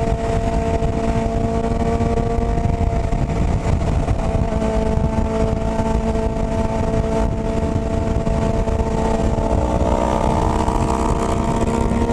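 Motorcycle engine running at steady revs while riding, its note climbing a little near the end as it accelerates.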